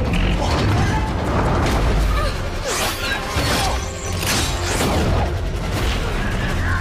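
Film action soundtrack: dramatic score over a steady deep rumble, with several whooshing, crashing effects about three to five seconds in.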